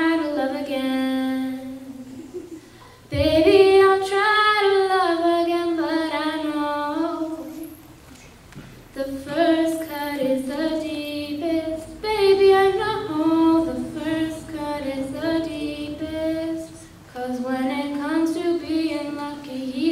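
A girl singing solo and unaccompanied into a microphone, in four long sung phrases with short breaks for breath between them.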